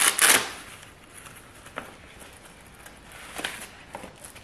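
Hands handling a soft camera pouch and a small camcorder in thin white packing wrap: a brief burst of rustling at the start, then faint rustles and a few soft clicks.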